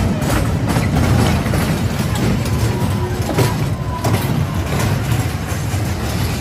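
Kiddie roller coaster running: a steady low rumble from the cars rolling along the steel track and past the motor-driven drive tyres, with several sharp clacks from the cars and track.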